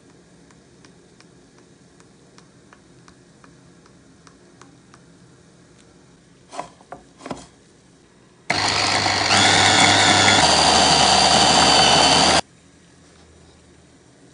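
Electric mini chopper motor running for about four seconds, blending basil, pine nuts, cheese and oil into pesto; its sound changes about halfway through as the blades work the mixture. Before it, two sharp plastic clicks as the lid and motor top are fitted.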